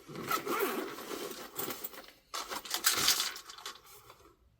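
Two stretches of rasping, zipper-like scraping as a medicine container is opened.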